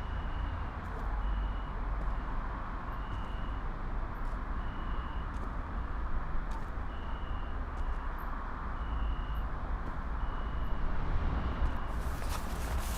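Outdoor ambience: a steady low rumble with a faint high chirp repeating irregularly about once a second. Footsteps begin about a second before the end.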